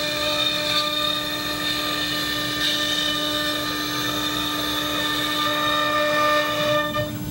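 CNC router spindle whining steadily as a small end mill cuts a profile into end-grain walnut, with the hiss of cutting and dust extraction underneath.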